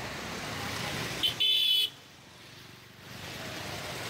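Traffic noise on a wet road, with a high-pitched vehicle horn giving a quick double toot about a second and a half in, the second note held for about half a second. The background noise dips for a moment after the honk.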